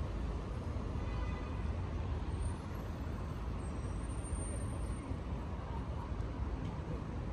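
Steady city road traffic: a continuous rumble of passing cars and heavier vehicles.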